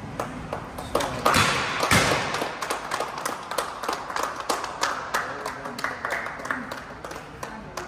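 A few people clapping, with two louder bangs about one and two seconds in; the clapping fades towards the end.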